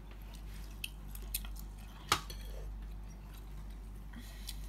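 Faint eating sounds: chewing and a metal fork clicking against pizza in a cardboard box, with a few small clicks and one sharper click about two seconds in, over a low steady hum.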